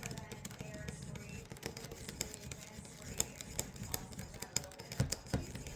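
Irregular light clicks and taps of a leather knife sheath being handled and pressed against a table edge, over a low rumble.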